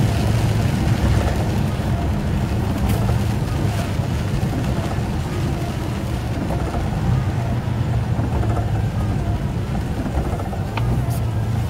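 Lorry's diesel engine running steadily, heard from inside the cab, with tyre noise on a wet road.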